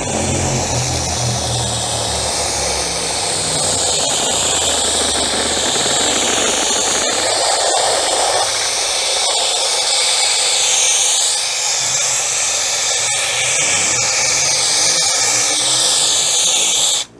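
Compressed-air powder coating gun spraying powder, a steady loud hiss that cuts off abruptly near the end as the trigger is released.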